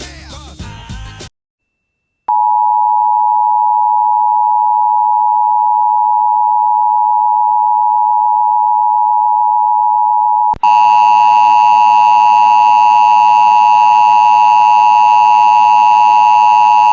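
Emergency Alert System attention signal over the radio: a steady two-tone electronic tone, its two pitches just under 1 kHz (853 and 960 Hz), held for about eight seconds. About ten and a half seconds in it jumps louder and rougher, with a buzzy edge, and runs on for about six more seconds. Before it, station music cuts off abruptly about a second in and is followed by a second of silence.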